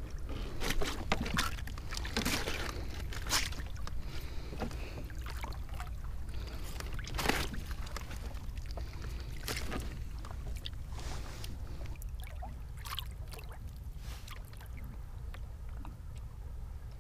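Scattered knocks, clicks and rustles on a fishing kayak over a steady low rumble of water sloshing against the hull.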